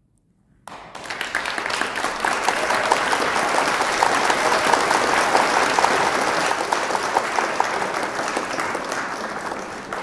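Audience applauding: clapping breaks out suddenly under a second in after a brief silence, holds steady with a few sharper individual claps standing out, and begins to die away near the end.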